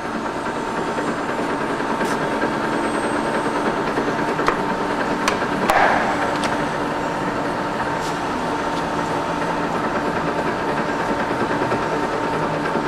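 Okuma LS-540 gear-head engine lathe running under its 10 HP motor drive, a steady mechanical hum with a thin steady tone, as the carriage is power-traversed along the bed. A few sharp clicks and a short rattle come about five to six seconds in, as the apron feed lever is worked.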